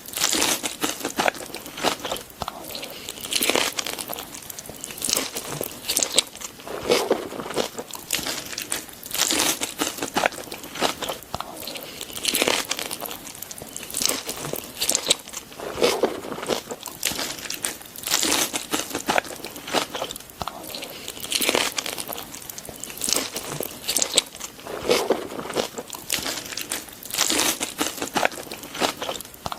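Close-up eating sounds: a person chewing and crunching food, with many small mouth clicks and louder bites every second or two.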